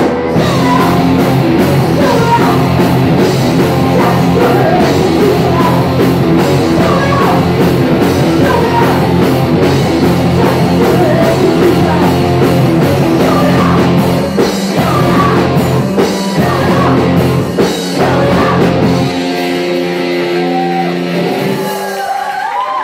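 Punk rock band playing live: distorted electric guitars, bass and drums with a woman singing. About nineteen seconds in, the drums and bass drop out and held notes ring on as the song ends.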